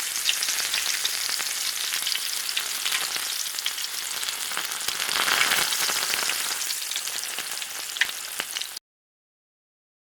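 Food frying in hot oil in a pan: a steady sizzle with small crackles and pops throughout, cutting off suddenly near the end.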